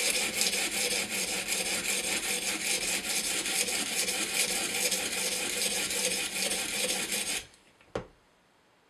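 A coarse 120-grit Edge Pro stone rasps back and forth along the edge of a CTS-20CP steel knife blade, grinding a new bevel. The grinding stops about seven and a half seconds in, followed by a single light knock.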